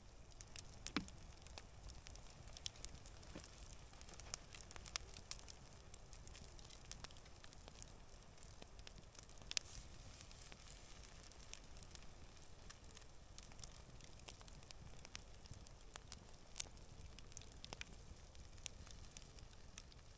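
Wood campfire crackling with scattered sharp pops, the loudest about a second in and again near halfway, while meat sizzles faintly on a grill grate over the embers.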